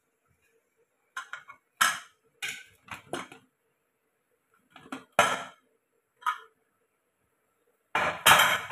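Aluminium pressure cooker lid being worked open and lifted off: a series of sharp metal clanks and knocks, with the loudest, longer clatter near the end.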